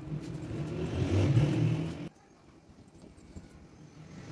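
A low rumbling hum that swells for about a second and a half, then cuts off abruptly about two seconds in.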